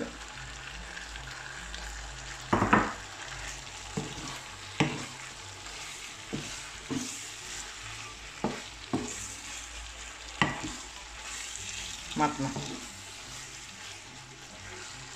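Wooden spoon stirring and tossing pasta in a frying pan over a steady low sizzle, with a few uneven knocks of the spoon against the pan.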